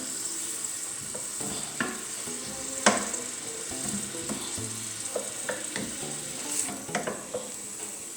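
Chopped onion and spring onion sizzling in a little olive oil in a pan as they soften, a steady frying hiss. A few short knocks of a utensil on the pan as it is stirred, the loudest about three seconds in.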